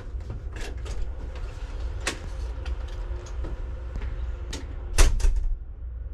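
A cabin door being opened and shut, with sharp clicks of the handle and latch and a heavy thump with a short rattle about five seconds in, over a steady low background rumble.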